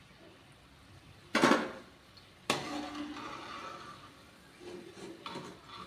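Metal perforated skimmer knocking against the side of a metal kadai of frying oil: a sharp clank about a second and a half in, a second clank a second later that rings on briefly, then a few lighter knocks near the end.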